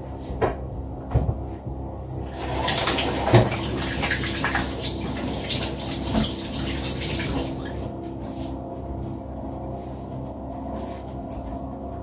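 Kitchen tap running into a sink while hands are washed under it. The water starts about two seconds in and stops a little past the middle, after a few light knocks at the start.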